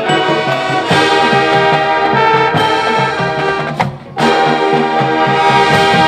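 High school marching band playing loud brass chords over a repeating low pulse. It breaks off briefly about four seconds in, then comes back in on a long held chord.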